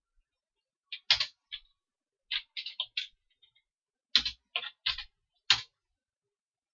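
Computer keyboard keystrokes: about a dozen separate key presses in short clusters, typing and editing a command at a terminal.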